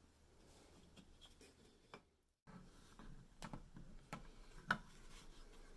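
Faint clicks and light knocks of wooden pieces being handled while two boards are glued together, with a few sharper taps in the second half.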